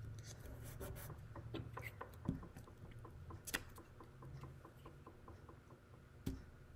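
Faint handling sounds of construction-paper cutouts being placed and pressed down onto paper on a wooden table: soft taps, rustles and a few light knocks, with a light, even ticking through the middle.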